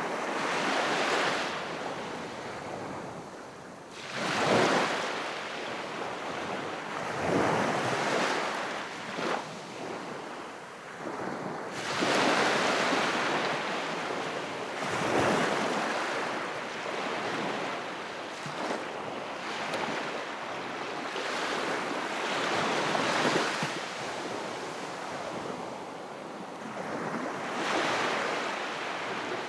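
Very calm sea waves washing onto the shore, a soft surge of surf swelling and easing every few seconds.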